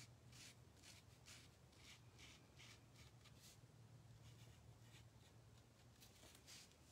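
Faint scratching strokes of a Posca paint marker's tip drawing along the edge of a thin laser-cut wooden cutout, about two strokes a second, over a low steady hum.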